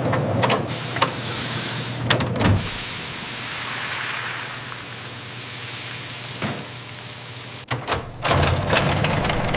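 Large steam-powered cooking machine running: a steady hiss over a low hum, broken by several clanks and knocks, a few in the first two and a half seconds and a cluster near the end.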